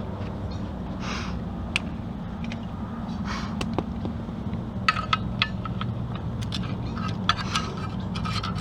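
Hand ratchet on a socket clicking in two quick runs, about five seconds and seven seconds in, as engine bolts are backed out. Scattered metal clicks come in between, over a steady low hum.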